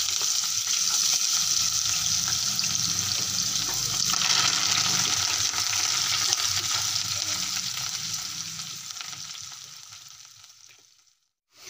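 Chopped vegetables frying in hot oil in a pan, sizzling steadily, then fading out near the end.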